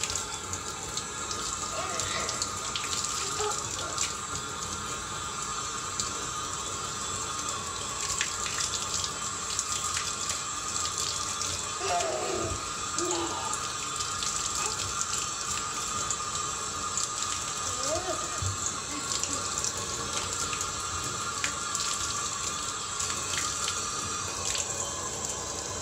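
Bathroom sink faucet running steadily, the stream splashing over small hands and into the basin.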